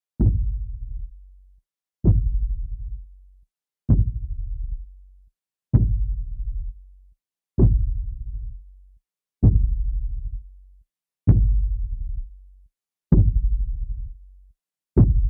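Deep single booming thuds repeating slowly and evenly, about one every two seconds. Each one hits sharply and dies away over about a second, with silence between.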